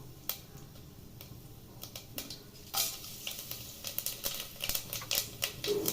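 Mustard seeds and urad dal crackling and popping in hot groundnut oil in a pressure cooker, with sharp scattered pops; about three seconds in a louder sizzle starts as the whole spices go into the oil.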